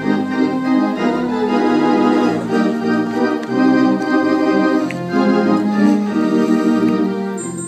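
Theatre pipe organ played live, held chords and a moving melody with notes changing about every second, heard through a phone's microphone in the theatre.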